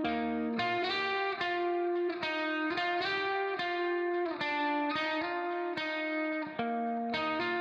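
Background music of plucked, guitar-like notes and chords at a steady, unhurried pace, a new note about every half second.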